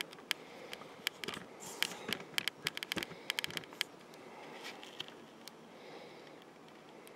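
Handling noise from a camera being repositioned and zoomed: faint scattered clicks and small scrapes, bunched in the first three and a half seconds, then only a faint hiss.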